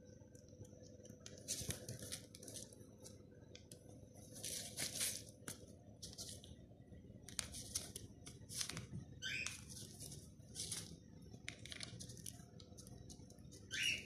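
Cockatiel wallowing and shuffling in a tub of loose seed, the seeds rustling and pattering in irregular bursts as it burrows and flutters its feathers, with a couple of short chirps in the second half.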